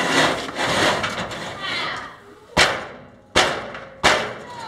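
Rattling and scraping of metal parts being handled, then three sharp metal knocks about two-thirds of a second apart, each ringing briefly.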